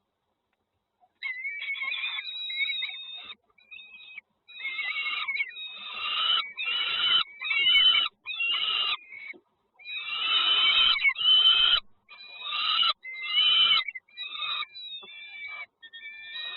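Nestling birds giving harsh, raspy begging calls in a run of bursts that start and stop abruptly.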